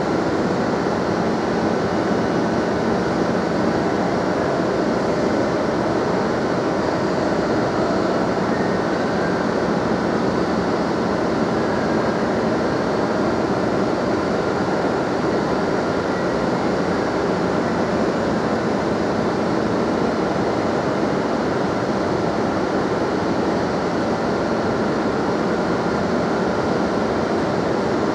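Madrid Metro Serie 5000 train standing at an underground platform, its onboard equipment running with a steady hum and hiss that holds a few faint constant tones.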